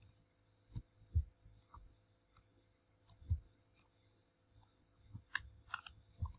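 Computer mouse clicking about ten times at irregular intervals while painting strokes, some clicks with a soft low thud.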